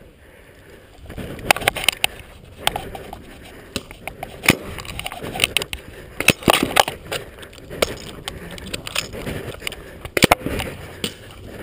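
Paintball game fire: irregular sharp pops of compressed-gas markers firing and paintballs smacking the inflatable bunkers. They begin about a second in, some in quick pairs, over the rustle of the player moving behind cover.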